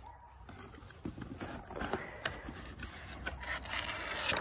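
A cardboard gift box and its paper packing being opened and rummaged through: irregular rustling, crinkling and scraping with small clicks, getting louder towards the end as the dog noses into the paper.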